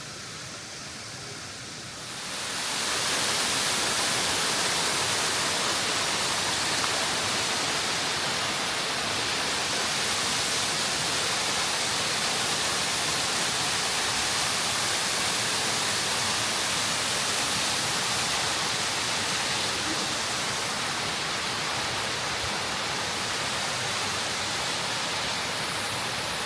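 Waterfall rushing: a steady roar of falling water that swells in about two seconds in and then holds level.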